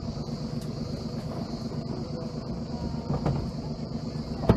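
Sailing yacht's inboard diesel engine idling, a steady low rumble, with a sharp knock at the very end.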